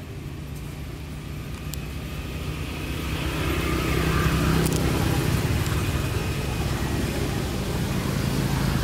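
Motor vehicle engine running, a low steady hum that grows louder about three seconds in and then holds.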